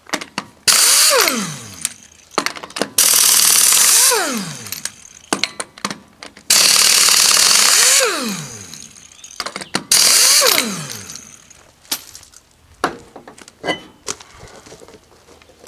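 Pneumatic impact wrench spinning off the four lug nuts of a 4-on-4 trailer wheel: four short bursts of the air motor, each ending in a falling whine as the tool spins down. After that come light clicks and knocks as the wheel is worked off the hub.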